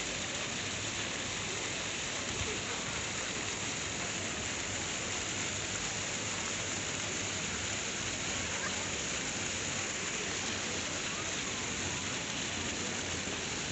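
Ground-level jet fountains spraying and their water splashing onto stone paving: a steady, even hiss.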